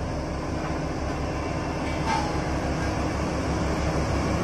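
Diesel engine of a Sakai SV515D single-drum road roller running, with a steady low rhythmic throb.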